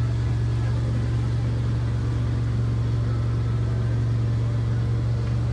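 Garden-tractor engine running at a steady speed while it pulls a ride-on train of small trailers, a constant low hum with no change in pitch.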